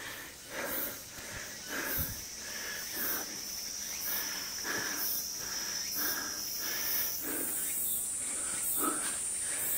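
Insects buzzing steadily in the forest as one high, level tone that gives way to a higher-pitched one about seven seconds in. Under it, footsteps fall on a leaf-littered trail at about one step every three-quarters of a second.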